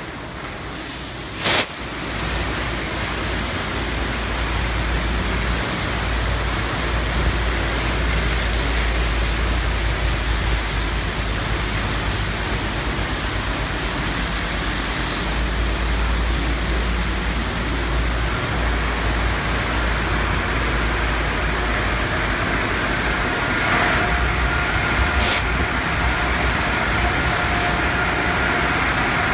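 Peco automatic car wash tunnel equipment running: spinning brushes and high-pressure water spray beating on a car make a loud, steady wash noise. There is a sharp burst about a second and a half in, and a steady whining tone joins in near the end.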